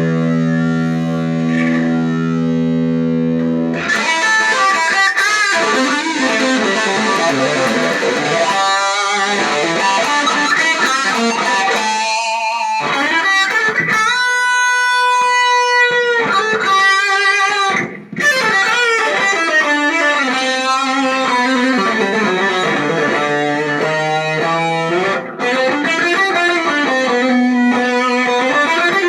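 Electric guitar playing a solo line: a long held low note, then runs of melodic phrases with a held high note about halfway through and a brief break shortly after.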